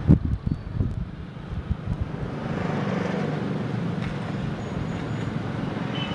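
Motorbike engine on the street, building to a steady drone from about two seconds in as it approaches. Gusts of wind buffet the microphone in the first two seconds.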